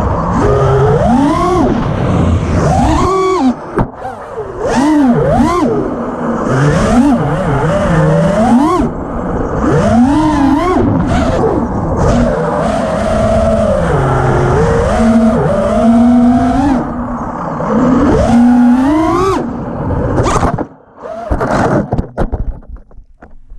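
FPV quadcopter's brushless motors (Emax RS II 2306 2600kv on Gate Breaker props) whining, their pitch swooping up and down with each throttle punch. About twenty seconds in the sound drops off suddenly, followed by a few short blips before it fades out.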